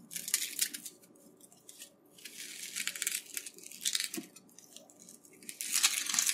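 Dry onion skin crackling and tearing as a yellow onion is peeled with a kitchen knife, in three spells of papery rustling.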